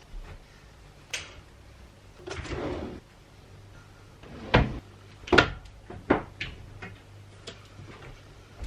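Household handling noises: a run of sharp knocks and clacks, with a short scraping slide about two and a half seconds in. The two loudest knocks come around the middle.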